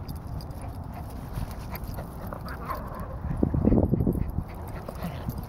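Small dog whimpering faintly, over steady low wind rumble on the microphone and footsteps in sand, with a louder scuffling stretch about three and a half seconds in.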